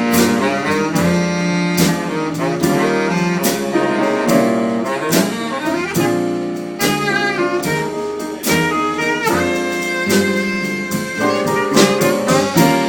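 Jazz-style music: a melody line over a drum kit keeping a steady beat.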